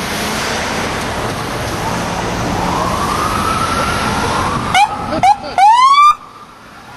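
NYPD patrol car siren over street traffic noise: a slow rising wail, then two short chirps and a louder rising whoop about five to six seconds in that cuts off suddenly.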